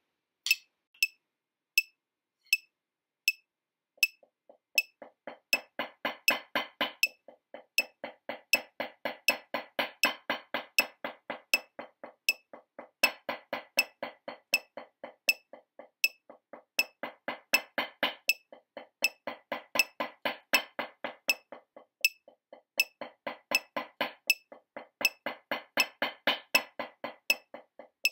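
Wooden drumsticks playing fast rudiment passages on a practice pad, in time with a steady metronome click. For the first few seconds only the click is heard, then the sticks come in softly and build up, playing in phrases with short breaks between them.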